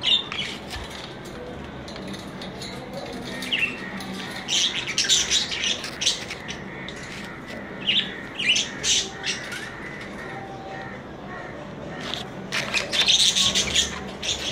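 Budgerigars chirping and chattering in short bursts of sharp, high chirps: a cluster about four to six seconds in, another around eight seconds, and a loud run near the end.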